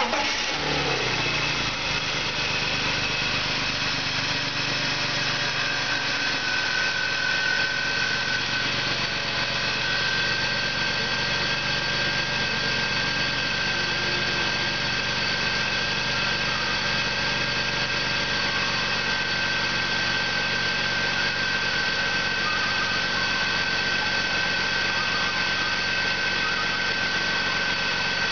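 2002 BMW 325i's 2.5-litre straight-six engine idling steadily just after starting, settling within the first couple of seconds. A thin steady whine joins the engine sound about six seconds in.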